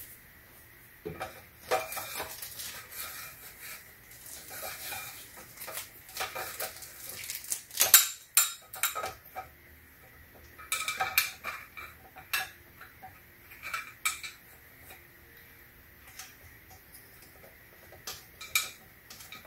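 Metal speaker tripod stand being handled and adjusted: irregular clinks, clicks and rattles of the metal pole and its fittings, with the sharpest knock about eight seconds in.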